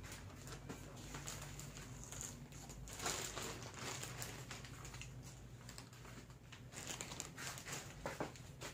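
Faint rustling and scattered light clicks from handling, over a low steady hum.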